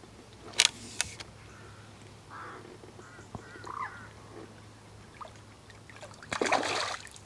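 A hooked tench splashing at the surface while it is played in on a float rod, with one loud splash lasting under a second near the end. Two sharp clicks come about half a second and a second in.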